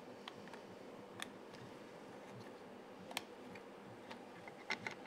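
Faint, scattered plastic clicks and taps as a 3D printer's touchscreen module is handled and pressed onto its swivel bracket, with a quicker run of clicks near the end, over a faint steady hum.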